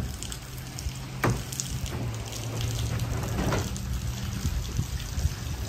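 Steady rain with water running and splashing onto wet pavement. Two sharp knocks, about one and three and a half seconds in, come from a man climbing into a pickup bed and moving a bucket and cooler.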